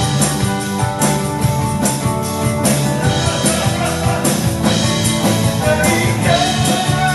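Live band playing a rock-style song: a drum kit keeps a steady beat under electric bass, guitars and keyboard, with a lead line near the end.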